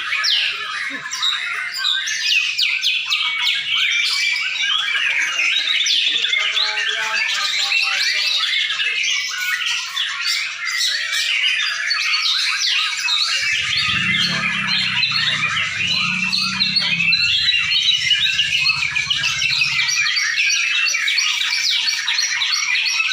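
Many white-rumped shamas singing at once in a contest round: a dense, unbroken overlap of rapid whistles, trills and harsh chattering notes. A low rumble sits underneath for several seconds in the middle.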